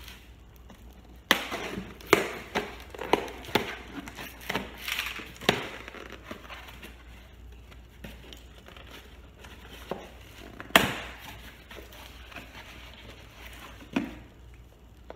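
A knife slitting the packing tape on a cardboard shipping box, a quick run of sharp rips and scrapes, then the cardboard flaps being pulled open, with one loud sharp crack about eleven seconds in.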